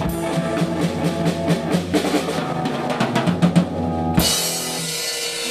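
Live drum kit and electric guitar playing a rock riff together, with dense drumming under held guitar notes. About four seconds in the band ends on one big hit, and a cymbal and the guitar are left ringing out at the close of the song.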